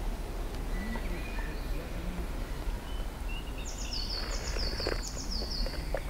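Wind rumbling steadily on the microphone. A songbird sings a run of about six quick, high, falling notes near the end, with a few faint clicks around it.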